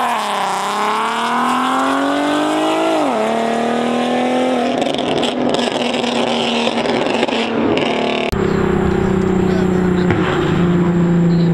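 Nissan 370Z's V6 accelerating hard away, its pitch climbing, dropping at an upshift right at the start, climbing again and shifting up about three seconds in, then holding and fading as the car pulls away. About eight seconds in, a sudden change to a steady engine drone from another car on the road.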